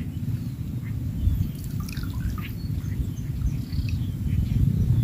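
Low, unsteady rumble of wind on the microphone, with faint scattered bird chirps above it.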